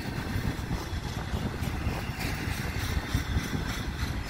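Double-stack intermodal well cars of a freight train rolling past: a steady rumble of steel wheels on rail, with a quick run of clicks from about two seconds in.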